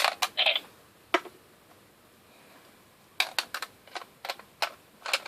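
Sharp plastic clicks from handling a Zyudenchi battery toy in the DX Gabutyra de Carnival toy, as it is taken out and slotted in: a quick cluster at the start, a single click about a second in, then a run of clicks in the second half.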